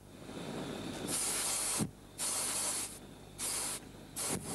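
Hot-air balloon propane burner firing in uneven bursts of hiss that cut out and catch again several times. It is spluttering in the thin high-altitude air.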